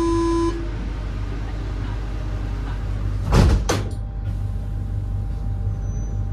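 Paris Métro train at a station: the steady door-closing warning buzzer cuts off about half a second in, and the sliding doors bang shut about three and a half seconds in. The carriage rumbles low throughout.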